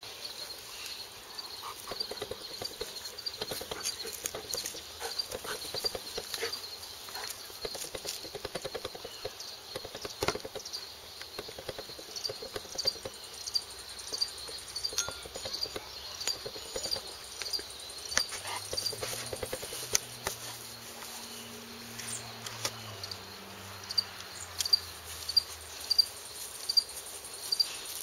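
An insect chirping steadily, short high chirps about one and a half times a second, over scattered clicks and rustling, with a few sharper knocks near the end.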